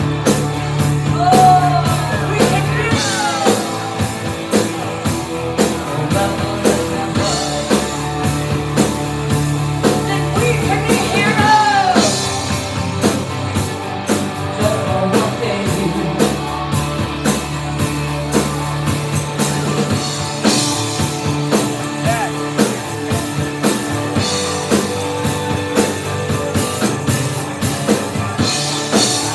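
Live rock band playing: female lead vocals over a steady drum-kit beat, bass guitar and electric guitar.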